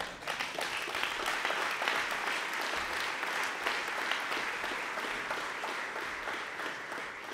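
Audience applauding in a large hall: many hands clapping steadily, slowly fading towards the end.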